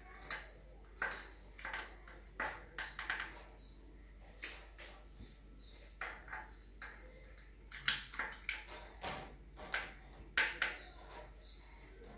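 Irregular light clinks and taps of kitchen utensils against dishes and jars on a countertop, a dozen or so spread over several seconds, the loudest near the end.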